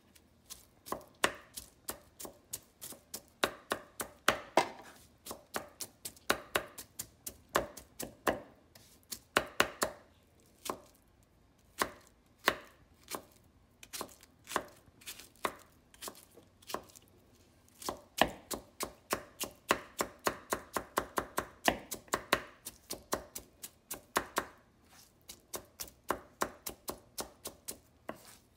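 Chef's knife finely dicing mango on a wooden cutting board: quick, irregular knocks of the blade on the board, about three a second, in runs broken by short pauses.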